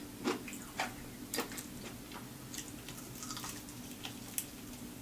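Close-miked eating of a crispy lemon pepper chicken wing: scattered bites and wet mouth smacks, with a run of crackly chewing clicks in the second half.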